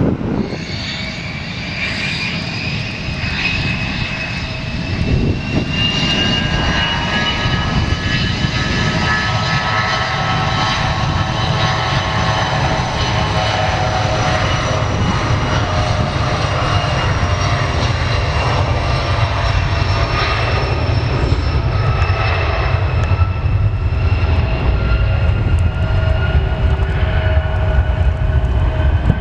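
Regional jet's rear-mounted turbofan engines running, a steady rumble under several whining tones that slowly fall in pitch.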